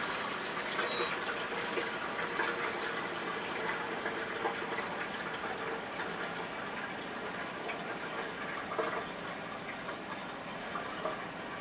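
Gasoline pouring from a plastic jerry can's spout into a small engine's fuel tank, a steady stream of liquid filling the tank. A loud high whistle sounds at the start and stops about a second in.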